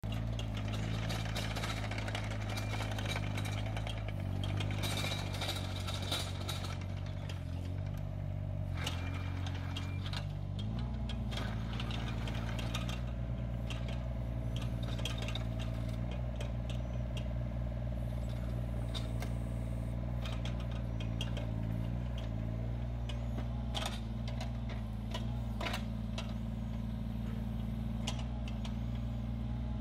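Yanmar ViO17 mini excavator's 14.5 hp diesel engine running steadily while the boom, arm and bucket are worked hydraulically, with scattered metal clanks and knocks. The engine note shifts about ten seconds in and holds steady after that.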